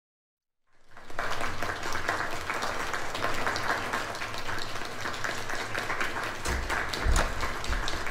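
Audience applause fading in about a second in and then going on steadily, with a few low thuds near the end.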